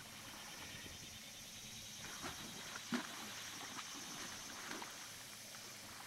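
A horse wading through shallow water, its hooves splashing and sloshing in a few separate strokes, the sharpest about three seconds in.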